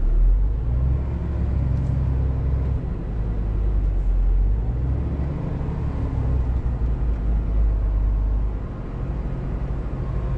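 Scania R410 truck's diesel engine running under load, heard from inside the cab: a steady low drone that swells and eases slightly as the truck moves slowly.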